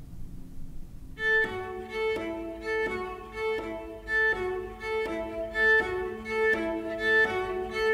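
String music, led by violin, begins about a second in: a repeating figure of sustained notes, a new note about every two-thirds of a second, in an even rhythm.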